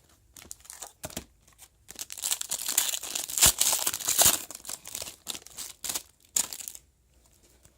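Foil trading-card pack wrapper being crinkled and torn open: a dense crackling for about three seconds, then a few short rustles and clicks as the cards are handled, dying away near the end.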